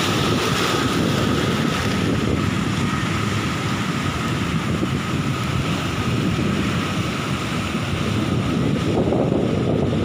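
Sea waves crashing and washing in foam over a rocky shore, with strong wind buffeting the microphone. The sound is loud and steady.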